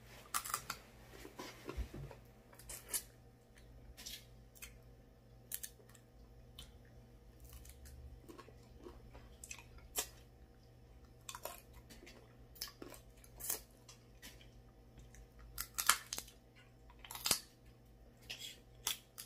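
Snow crab leg shells being cracked and picked at close to the mouth, with chewing and eating mouth sounds: irregular sharp cracks and clicks, the loudest ones about 16 and 17 seconds in.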